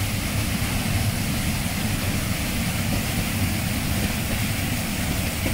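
Steady rushing of a waterfall pouring into a rocky river pool, an even, unbroken noise.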